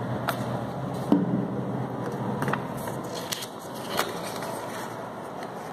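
Craft paper rustling as strips are handled and glued on a tabletop, with a few short, light taps and clicks spread through.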